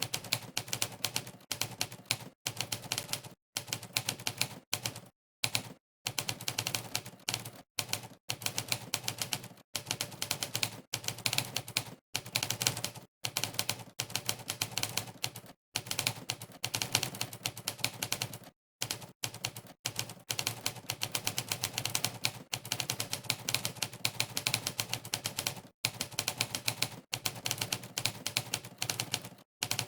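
Typewriter keystroke sound effect from the monkeytype typing test, one click played for each key pressed during fast typing. The clicks come in quick runs broken by brief dead-silent gaps.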